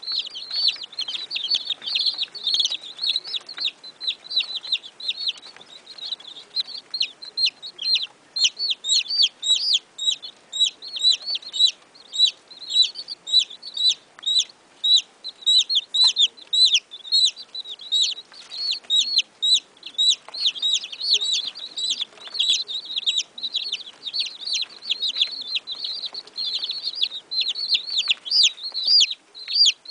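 A brood of baby chicks peeping without pause: many short, high-pitched calls overlapping, several a second, many of them falling in pitch.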